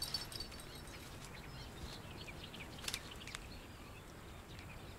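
Faint open-air ambience: a low steady rumble with scattered small bird chirps, and two sharp clicks about three seconds in.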